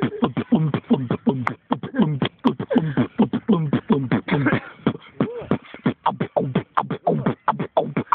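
Beatboxing: a rapid, unbroken stream of mouth-made percussive clicks and hits mixed with short vocal bass tones that drop in pitch.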